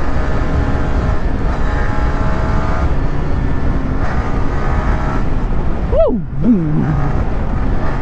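Yamaha R15 V3's single-cylinder engine running at cruising speed with heavy wind rush over the helmet-mounted microphone. About six seconds in, the rushing briefly drops and a tone falls steeply in pitch, rises slightly and falls again.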